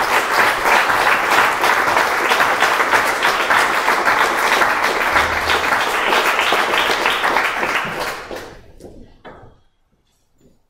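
Audience applauding, many hands clapping together, dying away about eight seconds in.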